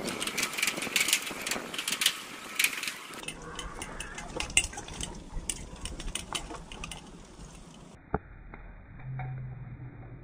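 Rattling and clicking from a bicycle being ridden over a boardwalk. The clicks thin out as the camera is handled, and there is one sharp knock about eight seconds in and a brief low hum near the end.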